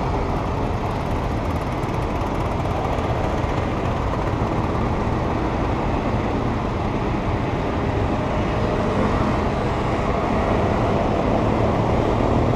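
Steady city traffic noise with the low running of engines; near the end an engine starts to rise in pitch as it speeds up.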